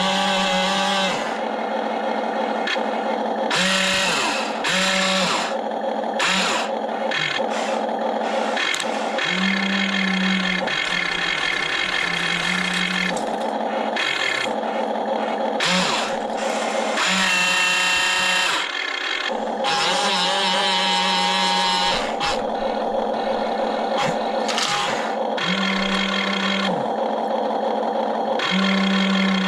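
Electric motors and gearboxes of an RC excavator whining as it works, with a low motor tone that starts and stops in stretches of a second or two as the controls are worked.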